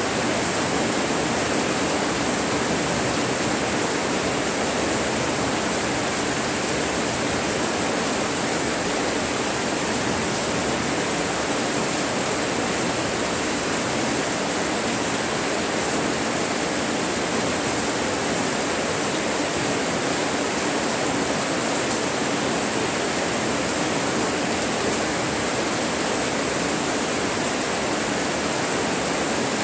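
Monsoon rain falling steadily, a dense, even hiss with no thunder or single drops standing out.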